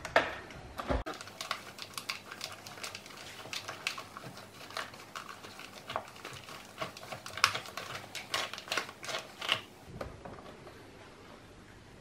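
Quick, irregular plastic clicks and rattles from a Shark DuoClean vacuum floorhead being handled while its brush roll is turned by hand to draw a cleaning cloth through behind the window, stopping about ten seconds in.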